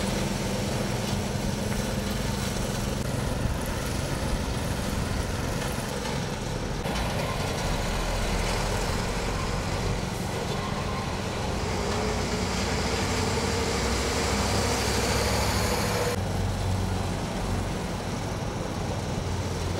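Diesel engines of road-patching machinery running: a truck idling beside the work, then a small ride-on road roller, with heavy traffic passing. The engine noise swells in the middle stretch and changes abruptly about seven and sixteen seconds in.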